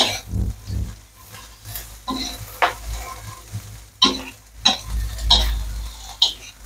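Metal spatula scraping and clinking against a stainless steel wok in irregular strokes while julienned carrots stir-fry in hot oil, which sizzles underneath.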